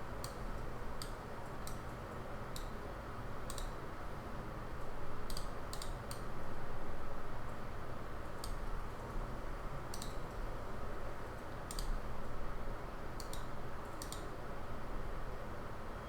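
Scattered, irregular clicks of a computer mouse and keyboard, some in quick pairs or threes, over a steady background hiss.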